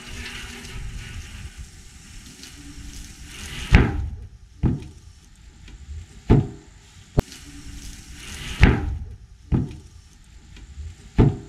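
A steel drum implodes under atmospheric pressure as the steam sealed inside condenses. A steady hiss is followed, about four seconds in, by a series of loud metallic bangs as the drum's sides buckle inward, seven in all and unevenly spaced.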